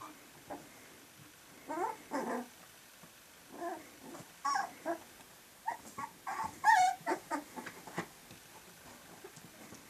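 Three-week-old puppies whimpering as they scramble over each other, a string of short squeaky calls in little clusters, the loudest a little past the middle.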